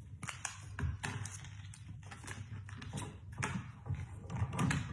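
Irregular light clicks and taps of a small hard object, as a pet parrot handles a toy with its beak and puts it away.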